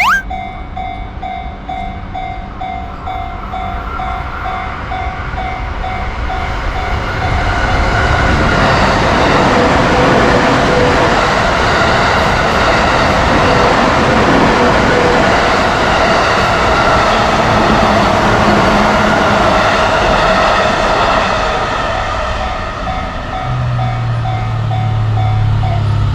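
Japanese level-crossing alarm bell ringing its kan-kan about twice a second while a train comes through. The train's rumble builds over the first several seconds, is loudest through the middle and eases near the end, when a low steady tone comes in.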